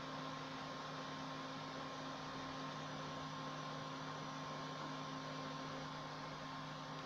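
Steady low hum with a faint high tone over a hiss, from a switched-on desktop computer running on the test bench.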